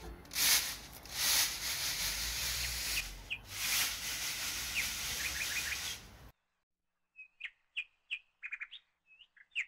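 Small bird chirping in short repeated calls, at first under a loud steady rushing noise like wind on the microphone. The rushing noise cuts off suddenly about six seconds in, leaving the chirps clear.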